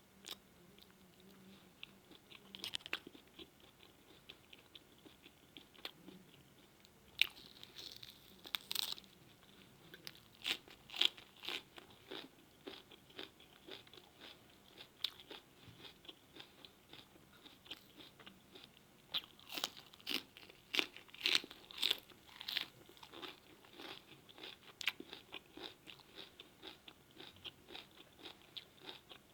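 A person chewing and biting food close to the microphone, with a run of irregular wet crunches and mouth clicks that come thickest in a few bursts.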